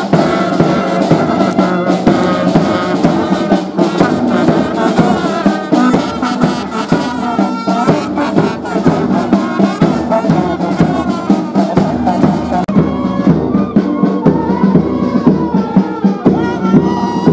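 Brass marching band playing a march: trumpets and low brass carry the tune over a steady drum beat.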